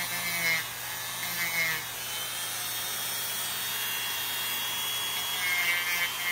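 Handheld electric rotary tool with a small sanding bit, running steadily while it grinds down toenails. A few short louder passes come as the bit works the nail.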